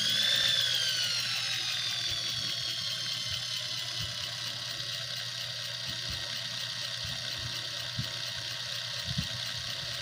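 Portable mini turbo washing machine's small electric motor spinning its pulsator disc while running dry, out of water. A steady high whine that peaks about half a second in and then slowly sinks in pitch.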